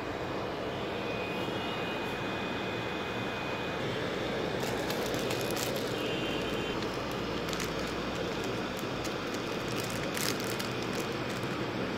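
Steady whooshing hum of a running LED projector's cooling fan, with a few light clicks in the second half.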